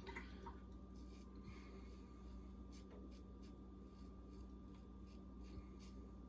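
Faint scraping strokes of a Muhle R41 open-comb safety razor cutting stubble on the neck: a series of short, quiet rasps, with a faint steady hum underneath.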